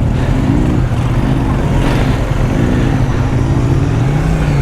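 Kawasaki Z400's parallel-twin engine running while riding, its pitch rising and dropping a few times as the throttle is worked, over steady wind and road noise.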